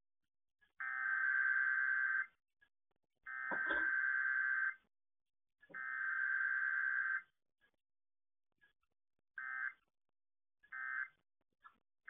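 Emergency Alert System SAME digital data tones: three long buzzy bursts about a second apart, then three short bursts near the end. This is the coded header and end-of-message signal that closes out an EAS test.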